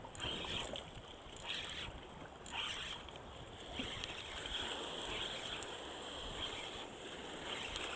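Choppy shallow water sloshing and lapping close to the microphone around a wading angler, with some wind noise.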